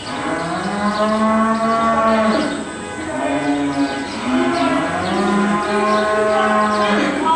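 Cattle mooing: one long call of about two seconds, then after a short gap several more calls in a row, some overlapping, for about four seconds.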